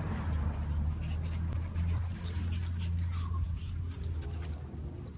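Small dog on a leash whimpering briefly about three seconds in, over a steady low rumble and light clicks.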